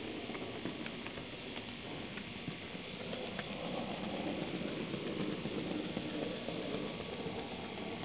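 HO-scale model train running along the track under the camera: a steady rolling rumble with occasional faint clicks.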